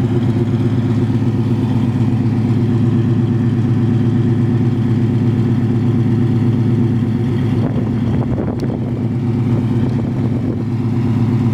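A 396 big-block V8 in a 1967 Chevrolet Chevelle, idling steadily through headers and a Flowmaster dual exhaust.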